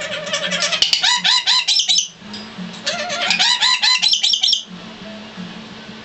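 Black lory calling in two bursts of rapid, high-pitched, harsh repeated notes, about five a second: the first burst lasts about two seconds, the second starts about a second later and runs nearly two seconds.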